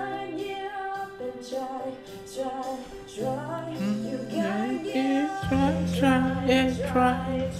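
A woman singing a slow song over instrumental accompaniment, her melody rising in the second half. A louder sustained bass note comes in about five and a half seconds in.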